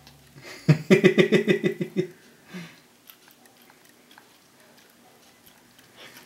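A baby gnawing and sucking on cucumber in a mesh feeder, with faint wet chewing clicks. About a second in comes a brief burst of quick pulsed voice sounds, like a chuckle or an eating hum.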